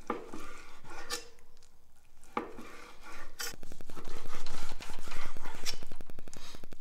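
Long kitchen knife slicing through seared skirt steak and knocking on a wooden cutting board, several sharp knocks, with faster, louder cutting strokes in the second half.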